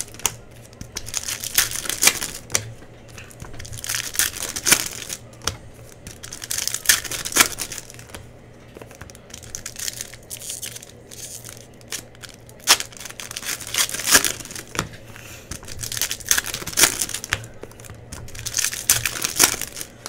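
Trading card pack wrappers crinkling and tearing as basketball card packs are ripped open and handled, in irregular bursts of rustling.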